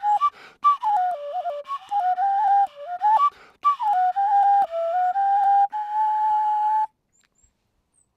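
A whistle made from Japanese knotweed playing a melody of stepping notes, ending on a long held note that stops about seven seconds in.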